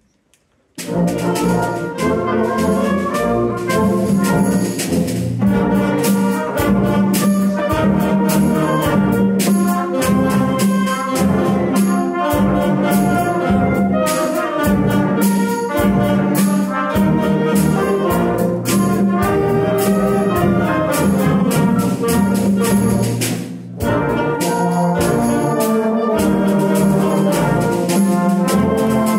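Wind band of clarinets, flutes and brass playing a piece together, starting about a second in, with a brief drop in volume about three-quarters of the way through.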